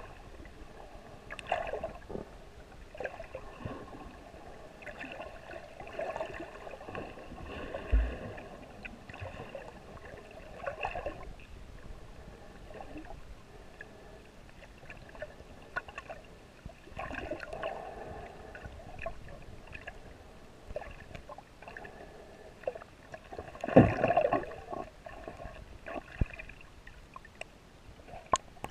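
Muffled water sloshing and gurgling picked up by a GoPro in its waterproof housing while snorkeling, swelling every few seconds, with two sharp knocks about a third of the way in and again near the end.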